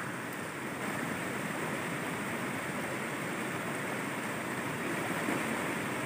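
Water rushing steadily along a shallow concrete channel, a continuous even wash.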